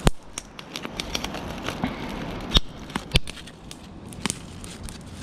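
Wood campfire crackling, with scattered sharp pops; the loudest come right at the start and about two and a half and three seconds in.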